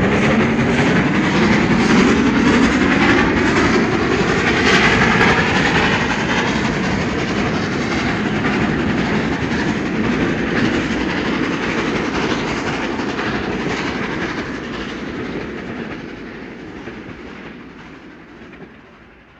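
Steam railway train running past, its wheels clicking over the rail joints with a continuous rumble; the sound fades steadily away over the last few seconds as the train recedes.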